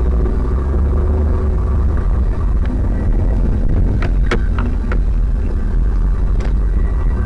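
A car driving, heard as a steady low rumble of engine and road noise. A few short, sharp clicks come about four seconds in, and one more comes a couple of seconds later.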